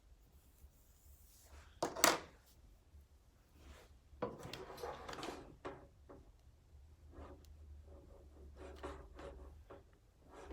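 Handling sounds of hair styling with a curling iron: a sharp clack about two seconds in, then rustling and scattered light clicks, over a faint low hum.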